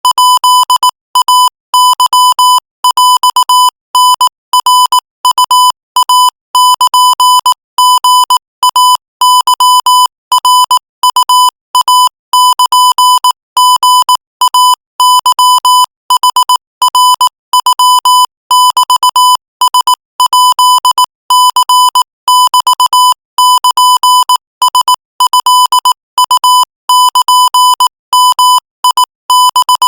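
Morse code sent at 22 words per minute as a single beeping tone of about 1 kHz. It is keyed on and off in rapid short and long marks with brief gaps between characters.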